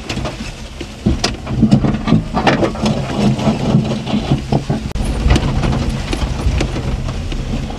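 1992 Daihatsu Hijet mini-truck's 660cc three-cylinder engine running as it drives over a rough wooded trail, heard inside the cab, with frequent knocks and rattles from the bumps.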